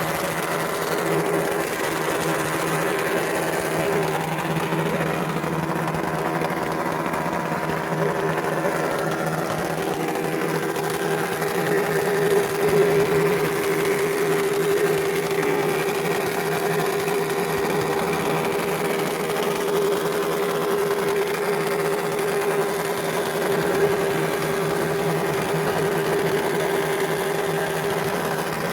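Small Honda Super Cub motorcycle engines running at a steady, held pitch for the whole stretch, with no revving up or down.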